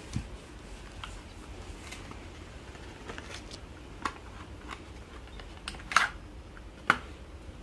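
Plastic snack packets and other items being handled in a box: scattered soft crinkles and taps, with two sharper crackles near the end.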